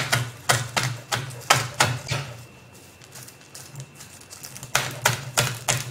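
Kitchen knife chopping kaffir lime leaves on a wooden cutting board: quick, even knocks of the blade on the board, about four a second. The chopping pauses for a couple of seconds in the middle, then starts again.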